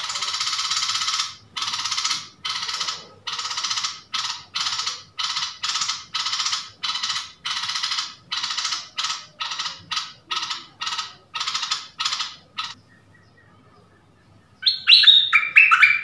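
A long run of harsh, hissing pulses that come quicker and shorter as they go, stopping about three-quarters of the way through. Near the end a stripe-throated bulbul sings a short, loud phrase of clear notes stepping down in pitch.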